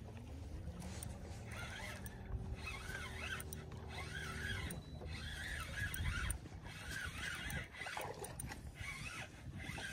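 A boat motor's hum that rises in pitch as it starts, runs steadily, then stops about five seconds in.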